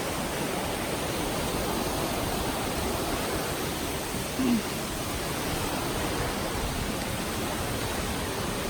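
Steady rushing roar of a tall waterfall, Ditumabo Mother Falls, about 140 feet high, with one brief louder sound about halfway through.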